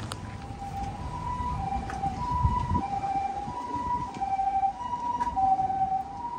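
Two-tone hi-lo siren of a Japanese ambulance, alternating a higher and a lower tone about every two-thirds of a second, starting about a second in. A low rumble lies underneath.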